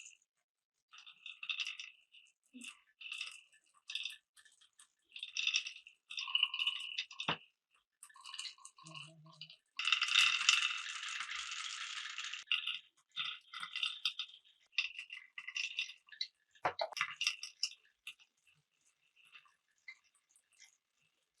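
Glass marbles rolling and clicking through wooden Cuboro marble-run blocks in a series of short rattling runs, with a longer, louder continuous rattle from about ten to twelve and a half seconds in.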